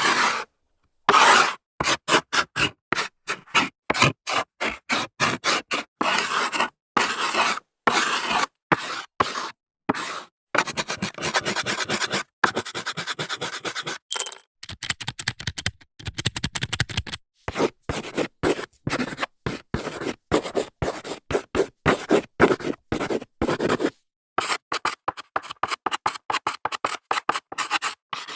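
Chalk writing on a blackboard: many short scraping strokes in quick succession, separated by brief silent gaps.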